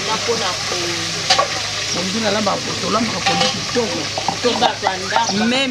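A woman's voice talking, over a steady hiss and a low hum.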